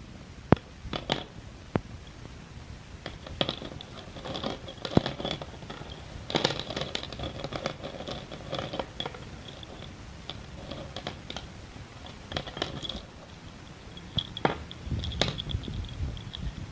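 Sticks of school chalk being bitten and chewed: a few sharp snaps early on, then spells of gritty, crackly crunching.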